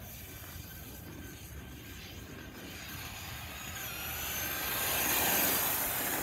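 Traxxas RC car driving at full speed, its electric motor whining; the sound swells as the car passes about five seconds in, then fades.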